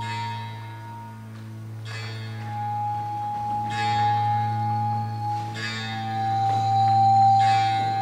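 Ambient music: a steady low drone under a held high note that steps down in pitch twice, with bell-like strikes about every two seconds.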